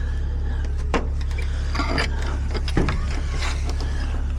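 Locksmith's tool working a door lock: a few short metallic clicks and scrapes, spaced about a second apart, over a steady low hum.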